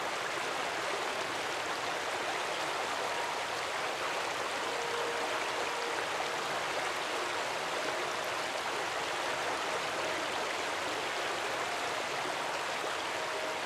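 Steady rushing of a forest stream, with a few faint short tones heard over it now and then.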